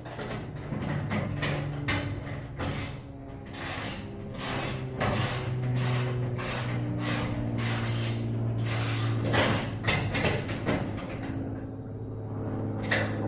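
Garage door mechanism running: a steady motor hum with a string of clanks and clicks as the door moves.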